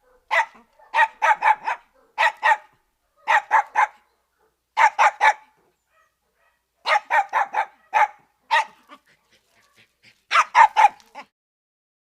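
A member of the dog family barking in quick clusters of two to five barks, with short pauses between the clusters.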